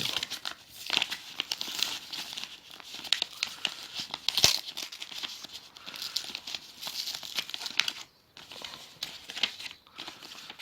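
A mail envelope being handled and torn open: irregular crinkling and tearing of paper, with a sharp click about four and a half seconds in.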